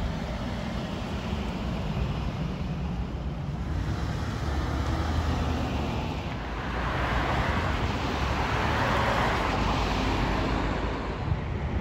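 Road traffic noise: tyres and engines of cars going by over a steady low rumble, with one vehicle passing loudest about seven to ten seconds in.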